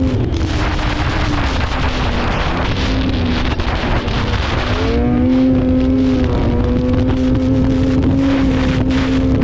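Two-stroke snowmobile engine running, with wind rushing over the microphone. The engine note falls off in the first second or two, climbs again about five seconds in, and holds steady at high revs.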